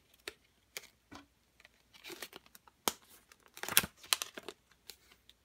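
Card-and-plastic retail package of a pocket bellows kit crinkling and rustling as it is handled, in short irregular bursts with a few light clicks; the loudest rustle comes about two-thirds of the way in.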